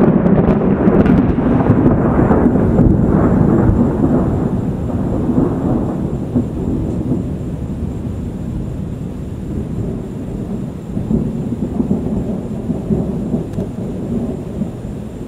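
Rolling thunder from a dry thunderstorm, with no rain falling. A loud, deep rumble fades from about six seconds in, then swells again more softly near the end.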